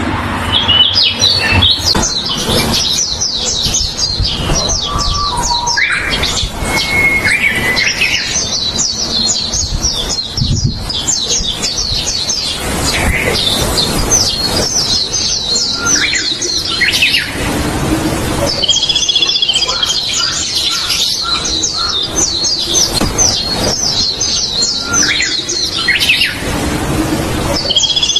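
Siberian rubythroat singing long, fast phrases of rapid high notes, each phrase running several seconds with short pauses between.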